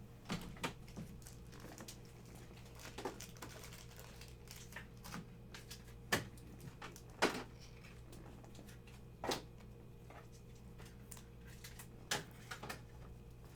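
Trading cards being handled and flipped through: scattered light clicks and short swishes of card stock, spaced irregularly, over a steady low hum.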